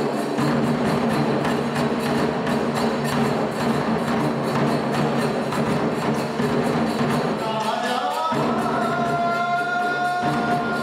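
Nanbu kagura music: a large drum and hand cymbals beat a fast, steady rhythm under a low held pitch. About eight seconds in, a high note slides up and is held.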